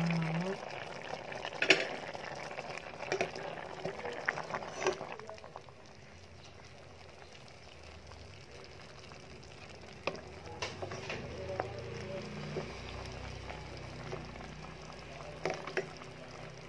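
Chicken-and-pineapple stew in a milky sauce simmering and bubbling in the pan, with scattered clicks that fit a spoon stirring it. It goes quieter for a few seconds in the middle, then the clicks resume.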